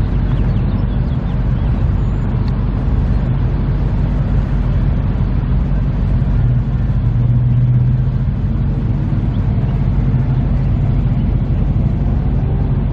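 Steady low rumble of a car engine, swelling briefly about seven seconds in.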